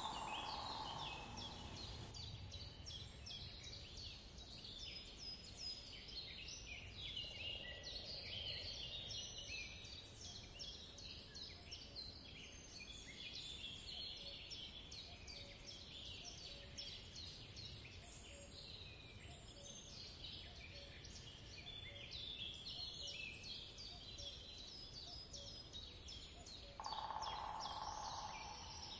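Birds chirping steadily in the background: many short, high chirps overlapping. A steady hum is heard for the first couple of seconds and comes back near the end.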